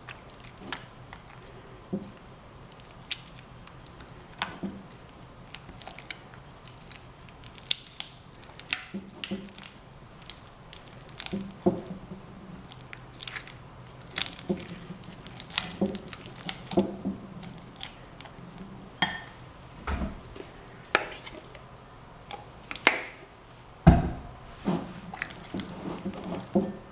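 A spatula stirring glue slime as it thickens with baking soda and contact solution in a glass bowl: irregular wet squelches and sticky pops, with a heavier thump about 24 s in.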